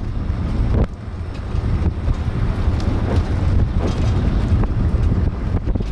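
Wind buffeting a microphone mounted on the outside of a moving car, a dense low rumble mixed with the car's road and engine noise, with a few brief knocks from bumps in the road.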